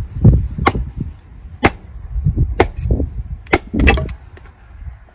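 Rinaldi axe splitting a log on a chopping block: five sharp wooden knocks, about one a second, with the last two close together.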